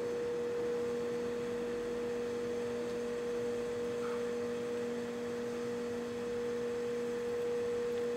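Steady hum of brewery machinery: one constant tone with a second tone an octave above it, unchanging throughout.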